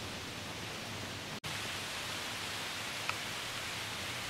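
Steady hiss of light rain falling on the forest leaves. The sound drops out for an instant a little over a second in, and a short high tick comes about three seconds in.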